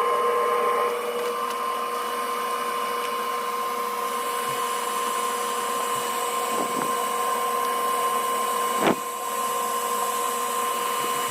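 FoxAlien 40x40 XE diode laser engraver at work: a steady two-tone whine from its stepper motors and cooling fan, with one short click about nine seconds in.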